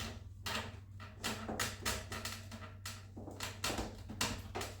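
A dozen or so light, irregular clicks and knocks from plastic and foam parts being handled and fitted while installing the RC biplane's wing struts, over a steady low hum.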